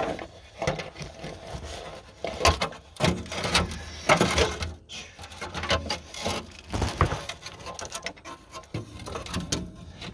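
Irregular knocking, clicking and scraping of parts and tools being handled and fitted in a machine cab, close to the microphone.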